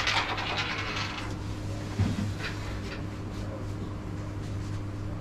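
Carrom striker and wooden coins clicking and sliding on the board just after a shot, a rattle that dies away within about a second. A single wooden knock about two seconds in.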